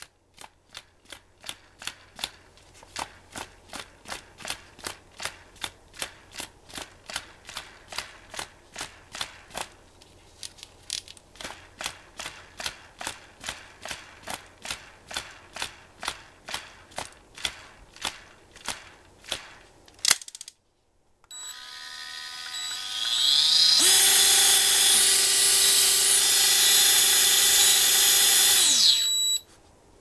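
Daiwa Super Tanacom S-500 electric reel: its spool clicks steadily, about two and a half clicks a second, for roughly twenty seconds. After a loud click and a moment's pause, the reel's motor starts winding, rising in pitch to a steady loud whine, then winds down and stops shortly before the end.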